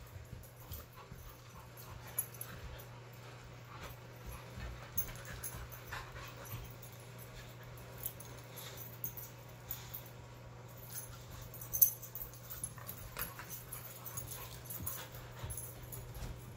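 Several dogs play-wrestling on a fabric couch: scuffling and small knocks, with a sharp thump about three quarters through. A steady low hum runs underneath.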